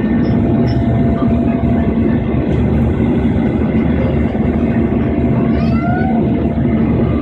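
Steady drone of an airliner's engines and airflow heard inside the passenger cabin, a constant loud hum with a low steady tone.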